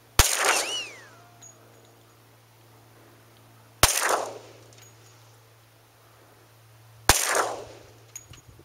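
Three shots from a 10mm Glock 20 pistol with its stock 4.6-inch barrel, firing Underwood 180-grain jacketed hollow points, spaced about three and a half seconds apart, each report ringing off over about half a second. The shots are part of a ten-round string over a chronograph.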